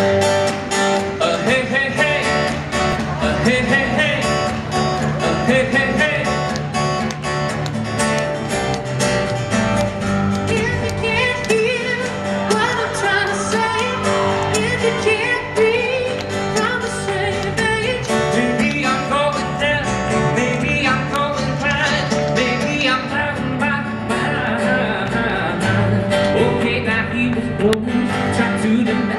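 Live country music: strummed acoustic guitars with keyboard and a sung vocal line, played by a band on stage.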